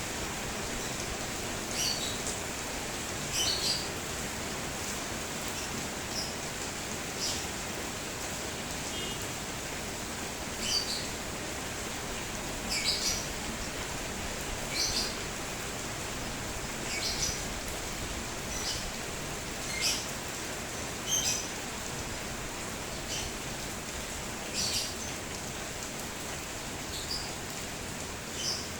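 Steady hiss of rain falling, with short high bird chirps every second or two.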